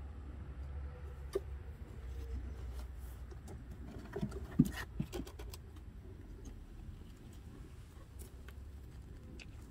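Light scrapes and taps as a cat steps among cardboard boxes and over gravel, with a short cluster of louder clicks and rustles about halfway through, over a low steady rumble.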